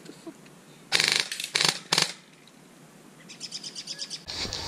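Airsoft gun firing: a short rapid burst about a second in and two more brief bursts just after, then a fainter even string of shots at about ten a second near the end. Music comes in just before the end.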